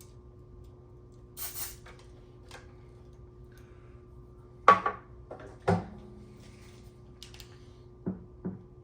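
A short hiss from an aerosol contact-cleaner can about a second and a half in. Then several sharp knocks and clicks as the amplifier's controls and the can are handled, the loudest near the middle and two smaller ones near the end.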